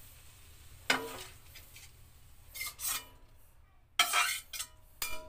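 A utensil scraping and clinking against a stainless steel wok in four separate strokes as cooked bitter melon is scooped out of the emptied pan.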